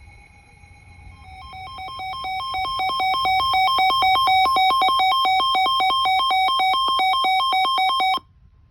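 Weather radio alert alarm for a severe thunderstorm warning: a high and a low electronic tone alternate rapidly. The alarm grows louder over the first three seconds, holds steady, then cuts off suddenly near the end.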